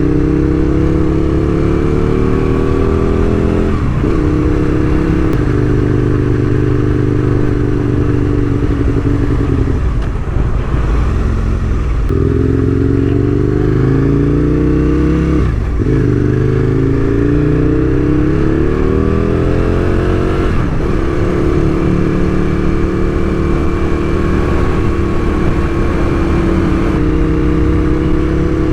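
Aprilia RSV1000's V-twin engine pulling up through the gears on the road: the pitch climbs, drops sharply at each gear change, then climbs again, about five times, with a longer easing off around the middle.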